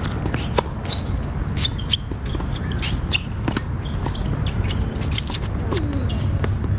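Tennis play on a hard court: sharp irregular pops of ball strikes and bounces, with sneakers shuffling and squeaking on the court surface. A steady low rumble of wind on the microphone runs underneath.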